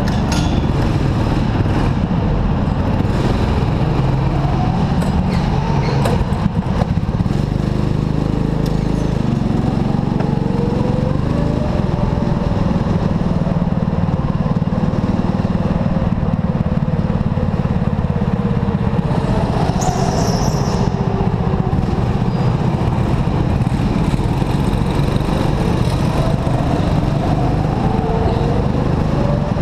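Go-kart's small engine running hard as it laps, its pitch rising and falling with the throttle through the corners. There is a brief knock about six seconds in.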